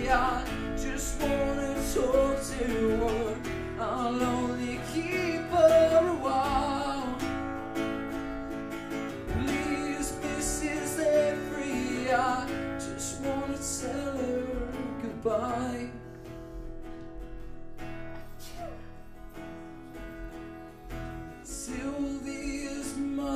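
A man singing to his own strummed acoustic guitar. About sixteen seconds in the voice stops for a few seconds of guitar alone, then the singing comes back near the end.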